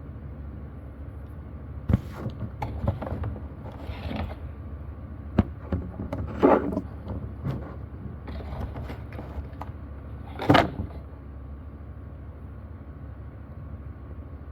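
Handling of boxed products being unboxed: scattered clicks, knocks and short scraping rustles of cardboard packaging over a steady low hum, with the loudest knocks about 2, 5.5, 6.5 and 10.5 seconds in.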